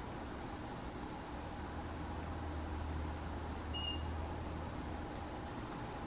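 Outdoor ambience of steady insect trilling, with a few faint high bird chirps in the middle. A low rumble swells in about a second in and fades near the end.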